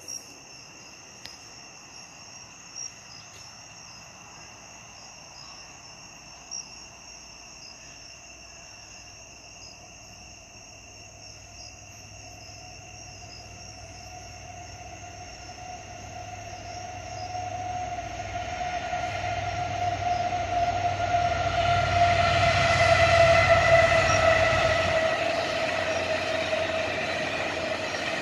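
Freight train approaching and passing: a low locomotive rumble and rail noise build from about halfway, peak a few seconds before the end and begin to ease, with a steady whine that falls slightly in pitch. Crickets chirp steadily underneath, plainest at the start.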